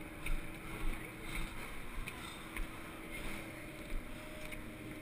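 Muffled low thumps and jostling from a body-worn action camera in its housing, about one or two a second, over a faint steady hum.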